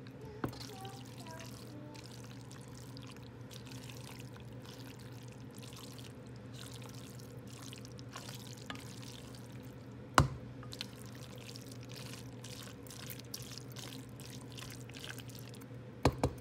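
Wet, sticky crackling from a pot of spaghetti in chili sauce, over a steady low hum. A few sharp clicks stand out, the loudest about ten seconds in and two near the end.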